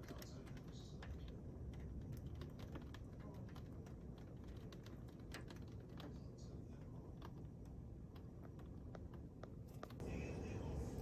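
Rain falling, with irregular drops tapping sharply on a hard surface. The rain grows louder near the end.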